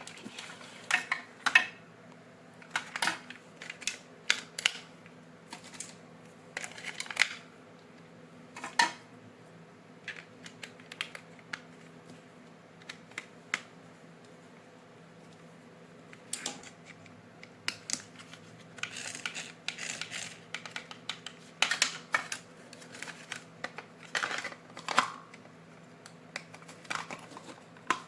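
Irregular clicks, taps and short rustles of hands handling plastic toy parts and packaging, sometimes in quick runs, over a faint steady low hum.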